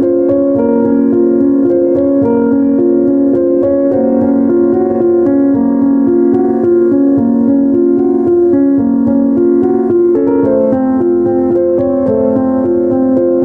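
Background music played on piano or electric keyboard: a steady stream of notes.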